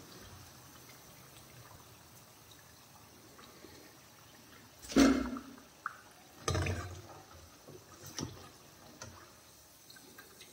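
Potato nuggets sizzling faintly in hot oil in a wok, with three knocks of a steel slotted spoon against the pan, the loudest about halfway through.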